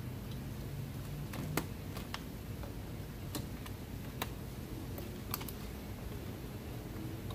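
Irregular light clicks and taps, about ten in all, from plastic push clips and trim pieces being handled and snapped back into place on a car's front end during reassembly.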